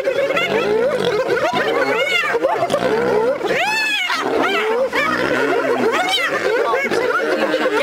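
Spotted hyenas mobbing a lioness on a kill: a din of many overlapping hyena calls that slide up and down in pitch, mixed with the lioness growling and snarling.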